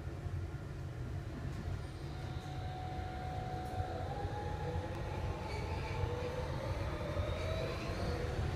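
Hamburg U-Bahn DT4 metro car heard from inside as it pulls away, with a steady low rumble from the running gear throughout. From about two and a half seconds in, the electric traction drive's whine rises slowly in pitch as the train gathers speed.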